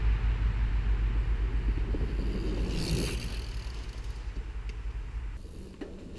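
A Cannondale Habit SE mountain bike rushing past close by on the dirt trail, its tyres and drivetrain hissing and rattling, loudest about three seconds in, over a steady low wind rumble on the microphone.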